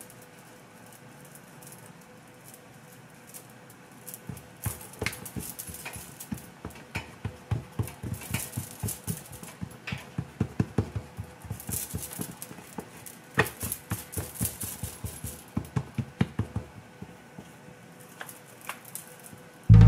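Fingertips patting and pressing dosti roti dough flat on a marble countertop: quick soft taps, several a second, starting about four seconds in.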